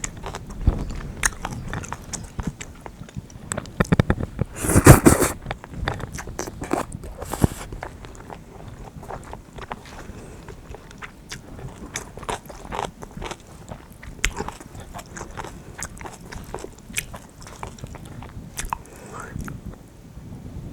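A person eating bibim-guksu noodles and kimchi up close: chewing, with many small clicks and smacks. A louder rush of noise comes about five seconds in, and a smaller one a couple of seconds later.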